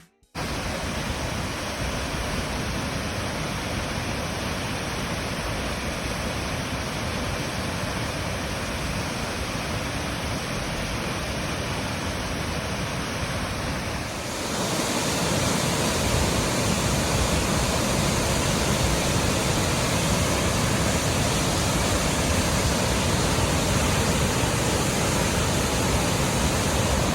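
Waterfall rushing: a steady wash of falling-water noise that grows louder about halfway through.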